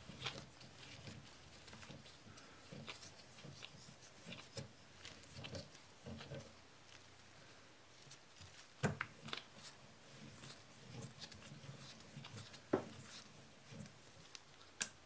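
Hand-turned lug cutter shaving the lower lugs of a 1911 barrel through the frame's slide stop hole: faint, intermittent scraping strokes with a few sharper clicks, the loudest about nine and thirteen seconds in.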